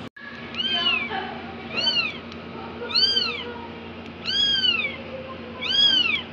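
Newborn kitten mewing: five high-pitched cries, each rising and then falling in pitch, about one every second and a half.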